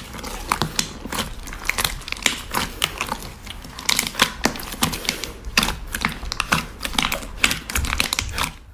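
Slime being squeezed and pressed by hand, giving rapid, irregular sticky clicks and crackling pops that cut off suddenly near the end.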